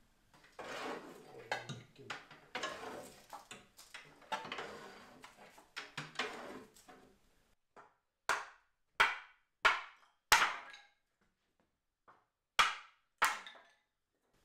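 Several seconds of rustling, scratchy handling noise, then sharp wooden knocks: four in quick succession about two-thirds of a second apart, a pause, then two more.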